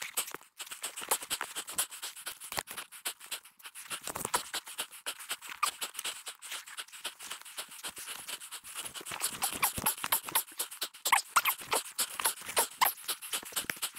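A person breathing hard over a dense run of irregular crunching and clicking. No engine is running.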